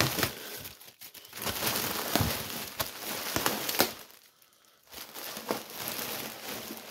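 Plastic wrapping on a pack of toilet paper crinkling and tearing as it is pulled open and handled, with a short pause a little past halfway.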